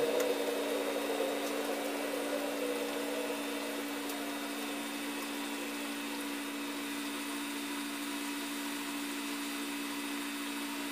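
A steady motor hum with an even hiss over it.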